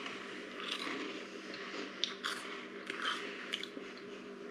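People chewing crisp Japanese crackers: irregular crunches as the crackers are bitten and broken up in the mouth.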